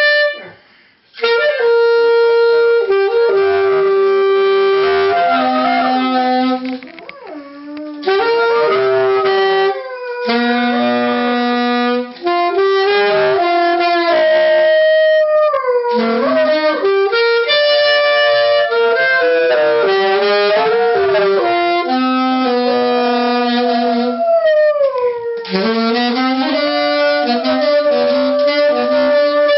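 A saxophone plays long, slow held notes. A golden retriever howls along with it, its voice wavering and sliding up and down against the saxophone's pitch.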